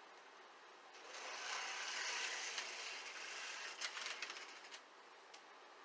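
HO scale Tenshodo Pennsylvania F unit model locomotive running, its motor and gears giving a gritty whir that starts about a second in and dies away after about four seconds, with a few clicks near the end. It is noisy enough that it clearly needs maintenance.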